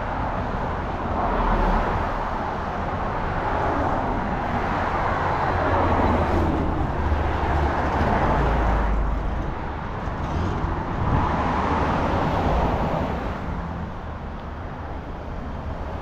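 Road traffic: several cars passing one after another on the street, each a swell of tyre and engine noise that rises and fades.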